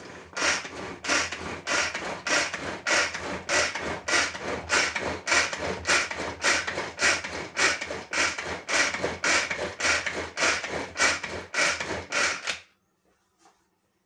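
Tupperware pull-cord food chopper mixing cake batter: its cord pulled out and let back in over and over, a little over two pulls a second, each pull a short noisy whir of the blades through the batter. The pulling stops about a second and a half before the end.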